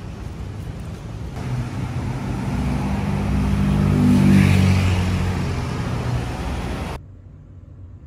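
Street traffic: a motor vehicle's engine passes by, swelling to its loudest about four seconds in, then fading. Near the end the sound cuts off abruptly, leaving only a low hum.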